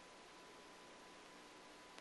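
Near silence: a faint steady hiss with a thin, steady high tone underneath.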